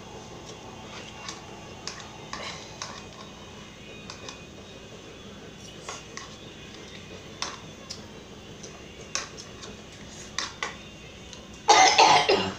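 Light scattered clicks of an eating utensil against a bowl as spicy noodles are eaten. Near the end comes a short, loud fit of coughing from a girl burning from the spicy noodles.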